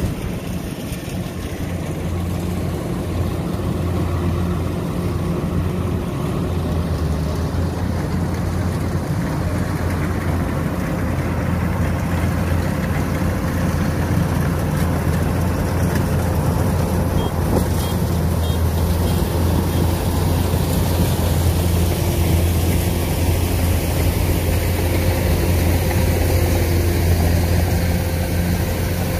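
Kubota DC-93 combine harvester's diesel engine running steadily under load while cutting and threshing rice, a constant low hum with a mechanical haze above it.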